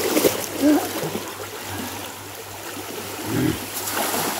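Rain-swollen creek running fast with a steady rushing sound, with splashing as people wade through the strong current.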